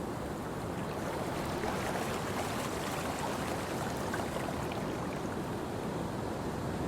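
Steady rush of sea waves and wind heard from a cruise ship's cabin balcony.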